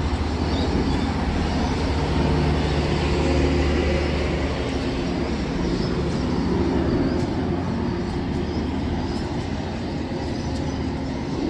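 Diesel locomotive running light, its engine giving a steady low hum that holds throughout.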